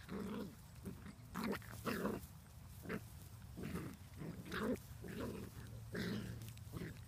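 Puppies growling in short bursts, about a dozen, as they wrestle in play.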